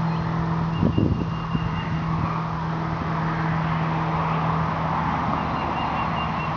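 Steady low mechanical hum of a running motor or engine, with a few soft knocks about a second in.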